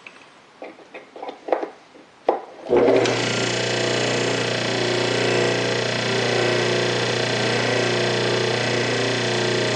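A few knocks, then about three seconds in a vintage GE AC shunt motor switches on and runs with a steady, loud hum. The bench acts as a sounding board, and the noise is from everything on the bench rattling.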